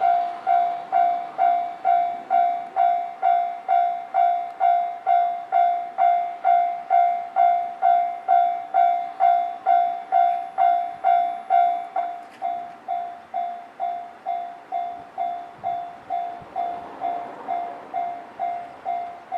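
Japanese railway level-crossing warning bell ringing at about two strokes a second, each stroke a bright tone that dies away. About twelve seconds in it turns quieter and duller.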